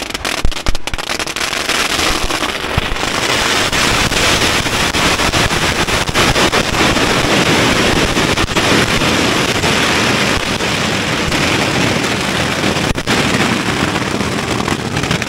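Strings of firecrackers going off at close range: separate sharp bangs at first, merging about three seconds in into a dense, unbroken crackle of rapid-fire reports.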